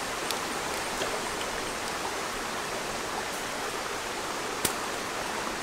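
Stream water running steadily, a constant rushing hiss. A single sharp click stands out about four and a half seconds in.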